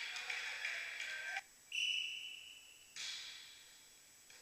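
A referee's whistle blown once in a sports hall, a single steady high note of about a second that starts and stops sharply, over the noise of the gym; in volleyball it signals the server to serve.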